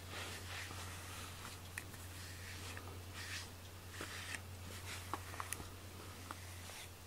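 Grooming brush stroked repeatedly through a cat's fur, giving soft scratchy swishes about once a second, with a few faint ticks.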